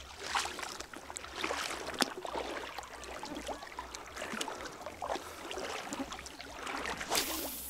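Footsteps wading through shallow water over a stony bottom: irregular splashes and sloshes with small clicks.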